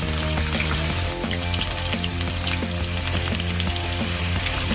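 Chopped onion frying in hot oil in a wok: a steady, loud sizzle.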